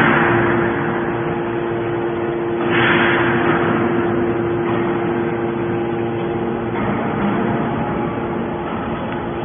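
Hydraulic scrap metal baler running: a steady hum from its pump and motor, with a burst of rushing noise about three seconds in.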